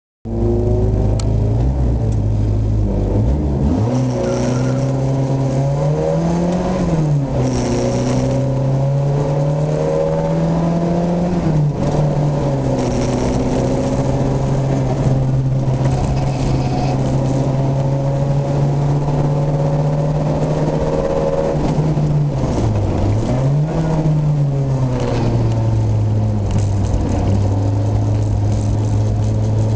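Car engine heard from inside the cabin, driven through a tight cone-and-tyre slalom. The revs change about three and a half seconds in, then hold mostly steady, dipping and rising again briefly a few times as the car slows and accelerates through the turns.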